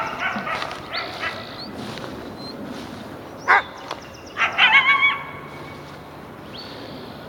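Coyote barking: a quick run of barks in the first second or so, one sharp yelp about three and a half seconds in, then a higher, drawn-out bark-howl near five seconds.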